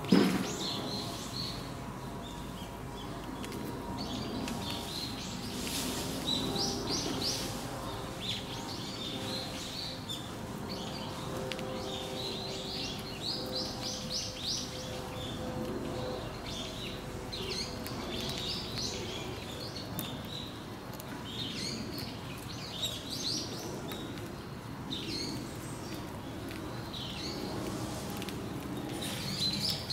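Small birds chirping again and again in quick little runs of high notes, over a low steady background hum.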